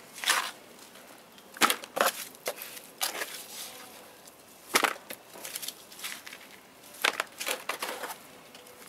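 Gloved hands digging moist soil out of a plastic planting tray and tipping it into a plastic basin: a scattered series of short scrapes and crunches.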